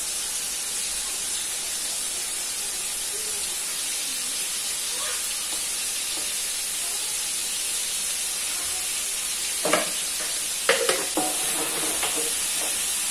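Oil sizzling steadily in a pan as seasonings are sautéed until fragrant, with a few sharp clatters of the spatula stirring against the pan about ten seconds in.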